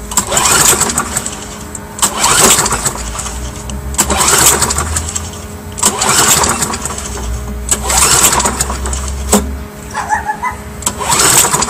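Briggs & Stratton engine on a walk-behind lawn mower being cranked with the recoil pull cord, one pull about every two seconds, turning over without catching.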